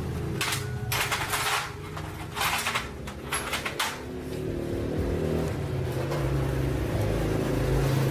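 Small motorbike engine running, its pitch rising and falling with the throttle, with several short bursts of hiss in the first four seconds.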